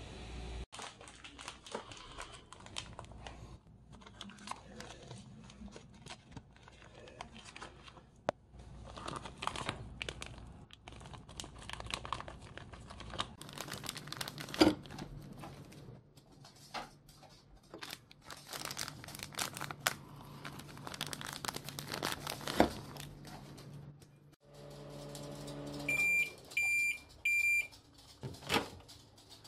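Plastic food pouch crinkling as a frozen block of cooked dog food is squeezed out onto a plate. Then a microwave oven hums while it heats, and three beeps signal the end of the cycle, followed by a click.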